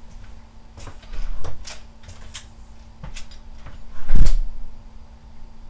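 Several short knocks and taps, the loudest a heavy thump about four seconds in, over a steady low hum.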